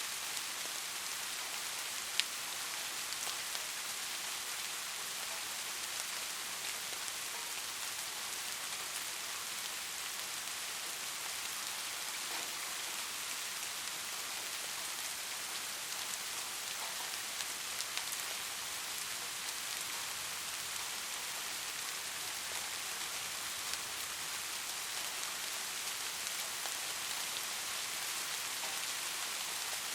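Steady rain falling, an even hiss with a few faint drop ticks and one sharper tick about two seconds in.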